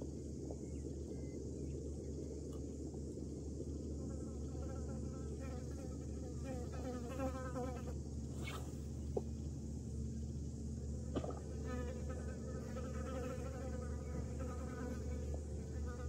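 A fly buzzing close to the microphone, its wavering drone coming and going, over a steady low rumble. A few sharp clicks fall in the middle.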